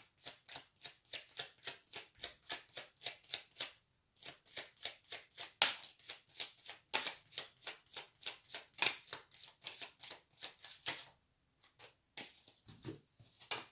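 A tarot deck being shuffled by hand: a quick papery swish of cards about four times a second, with a brief pause about four seconds in. The shuffling stops shortly before the end.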